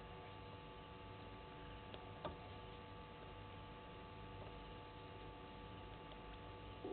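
Faint steady hum of several held tones, with a single soft click a little over two seconds in.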